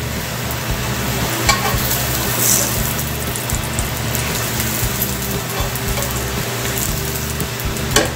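A tortilla sizzling in hot oil in a frying pan, being turned with a spatula, warming it until soft. A sharp click comes near the end.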